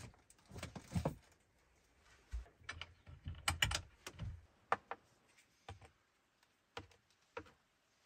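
Irregular light clicks and knocks of plastic spice shakers being taken out of a wooden overhead cabinet and set down on a counter, along with the cabinet door and its latch being handled.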